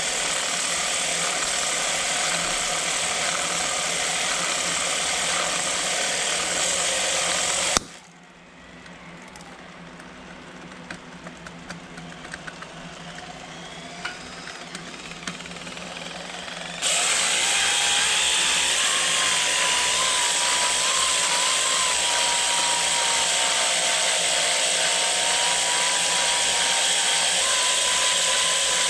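Dancing robot toy run at overvoltage from a bench power supply, giving out a loud harsh buzz. The buzz cuts out suddenly about eight seconds in, leaving faint scattered clicks, then comes back abruptly after about nine seconds with a wavering whine over it.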